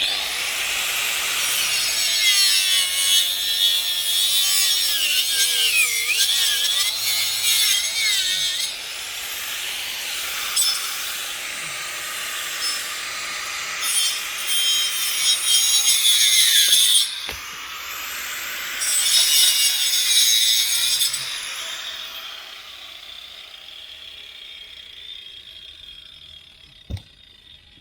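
5-inch angle grinder with a toothed alloy wood-cutting wheel cutting through a dead apple-tree branch. Its high whine wavers and dips in pitch as the wheel bites, with several louder cutting passes, then it winds down and fades near the end.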